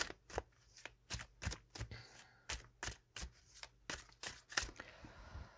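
Tarot cards being handled and shuffled: a run of short, crisp card flicks, about three a second, that stops near the end.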